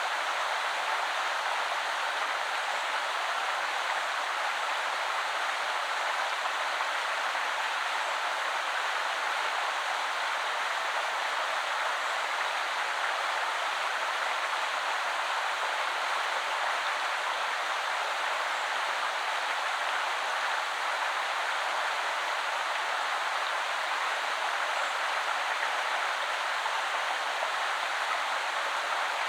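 Woodland river flowing steadily over stones, an even rushing babble of water with no breaks.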